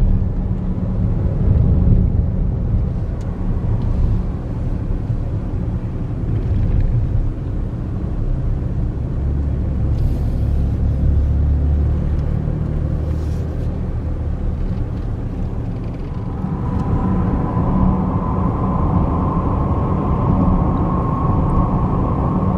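Road noise inside a moving car: a steady low rumble of tyres and engine. A steady higher-pitched whine joins in about three-quarters of the way through.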